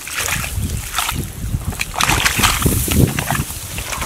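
Bare feet squelching and sloshing in wet mud, with tall grass swishing against the legs, in irregular steps about every half second.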